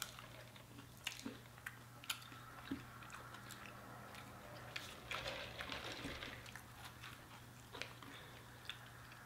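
Faint close-up eating sounds: people chewing and biting into chicken wings, with scattered short wet clicks and smacks over a steady low hum.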